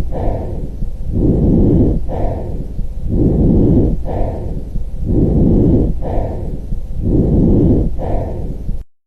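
Normal lung breath sounds as heard through a stethoscope on the chest: a soft breathy rush that repeats about every two seconds, each breath a short softer part followed by a longer, louder one. The sound cuts off abruptly near the end.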